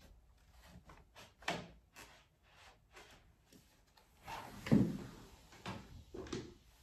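Plywood sleigh of a Filebutler copy holder, fitted with small metal rollers, being handled and set down on a desk. A few light knocks and clicks come first, then a louder wooden clatter about four and a half seconds in, followed by a couple more knocks.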